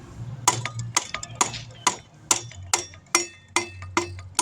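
Sharp metallic clicks, about two a second, each with a short ring: a hand tool working on the axle hardware as a motorcycle's rear wheel is refitted.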